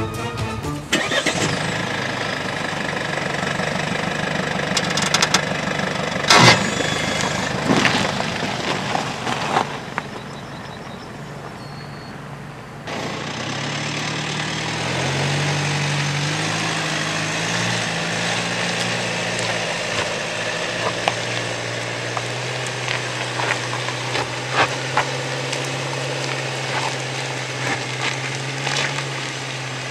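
Mercedes-Benz GLC engine running under load as the SUV drives up a steep gravel slope: a steady low drone that rises briefly in pitch, with stones crackling and ticking under the tyres. Before a sudden change about thirteen seconds in, other off-road driving noise with a few sharp knocks.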